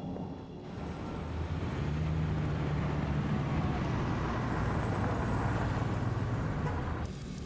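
A car driving: steady engine hum under road noise, swelling about a second in and easing off near the end.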